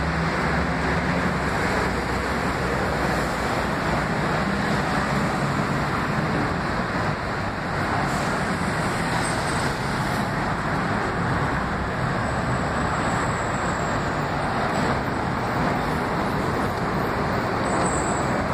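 Steady city street traffic noise, an even rumble and hiss of passing road vehicles.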